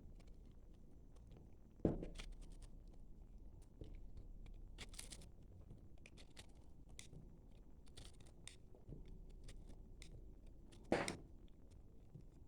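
Soap being cut with a knife, with dry crunching and crackling and two sharp knocks, one about two seconds in and one near the end.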